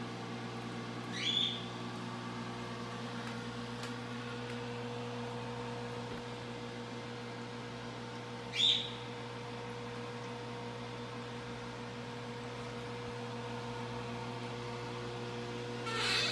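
Steady electrical hum of the nano reef aquarium's pump and filter equipment. Two short chirps rising in pitch come over it, about a second in and again about eight seconds in, with a louder, rougher burst near the end.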